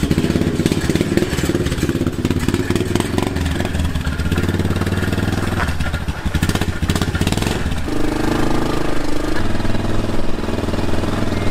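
Four-wheeler (ATV) engine running as the quad is ridden off, its pitch and level rising about eight seconds in as it speeds up.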